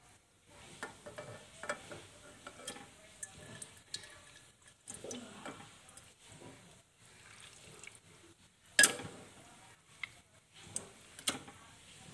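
Pieces of raw pork dropped by hand into an aluminium pot holding a little water: irregular soft plops and knocks against the pot, the loudest about nine seconds in.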